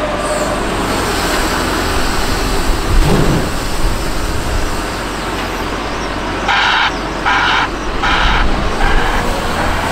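Hidromek HMK 640 wheel loader's diesel engine running steadily under work, with a heavy thump about three seconds in. From about six and a half seconds, a broadband reversing alarm gives four short hissing pulses, a little over half a second apart.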